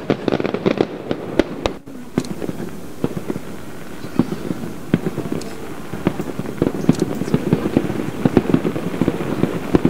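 Aerial fireworks shells bursting far off: a rapid, uneven run of sharp cracks and pops, densest in the first second and again in the last three seconds, with a brief lull a little under two seconds in.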